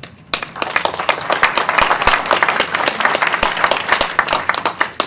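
Audience applauding, many hands clapping together. It begins a moment in and cuts off suddenly.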